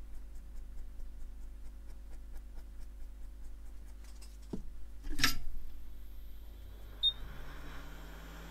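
Steady electrical hum of electronics bench equipment. A sharp click comes about five seconds in, and afterwards a low hum rises in pitch and then holds steady.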